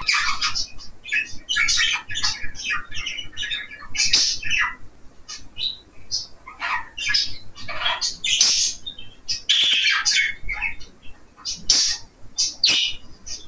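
Budgerigar warbling and chattering: a continuous run of quick chirps and squeaky notes, broken by several short, sharp squawks.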